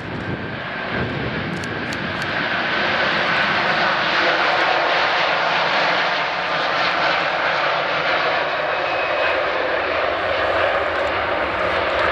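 Airbus A330-243 MRTT's twin Rolls-Royce Trent 772B turbofans at takeoff thrust during the takeoff roll: a loud jet roar that builds over the first few seconds as the aircraft nears, then holds steady, with a faint steady whine beneath it.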